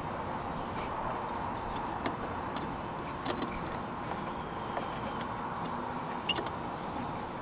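A few light, sharp clicks and taps of plastic and metal parts being handled while a halogen bulb is fitted into a pickup truck's headlight assembly, over a steady background hum.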